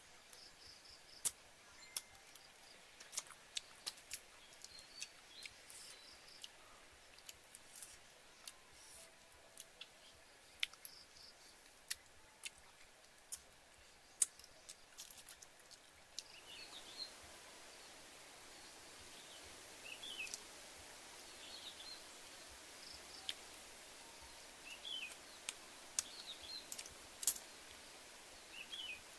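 Sharp, irregular cracking clicks, about one a second, as small hard shells are cracked open between the teeth and with the fingers. Bird chirps sound in the background and come more often in the second half.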